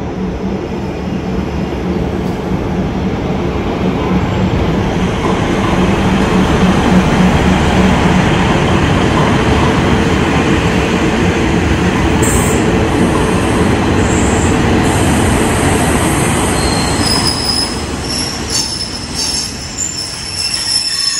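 A State Railway of Thailand passenger train rolls slowly past the platform: a steady, loud rumble of wheels and running gear with a low engine hum. Thin, high-pitched metallic squeals come in over the last few seconds.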